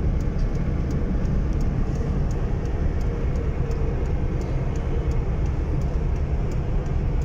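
Steady road and engine noise of a car driving at speed, heard from inside the cabin: a constant low rumble with tyre hiss, and faint, evenly spaced high ticks over it.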